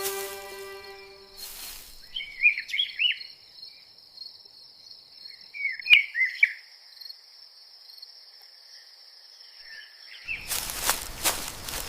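Crickets trilling steadily, with two short flurries of bird chirps. Background music fades out at the start, and a loud rushing noise starts near the end.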